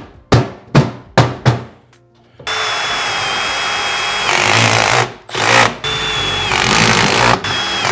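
Cordless impact driver driving self-tapping screws into galvanized sheet-metal duct: several runs of a second or two each, with short pauses between screws, starting about two and a half seconds in. Before that, a few sharp knocks on the sheet metal.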